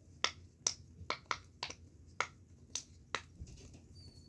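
Silicone pop-it fidget ornament having its bubbles pressed in one after another: about eight sharp pops at an even pace, which stop a little after three seconds in.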